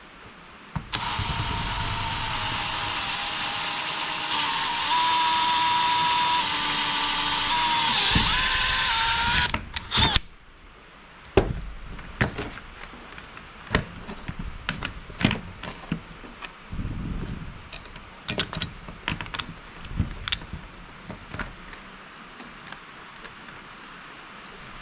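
Power drill running steadily for about eight seconds while drilling out a hole with a 1/4-inch bit, its whine shifting a little just before it stops. After that, a scatter of sharp clicks and knocks from parts being handled.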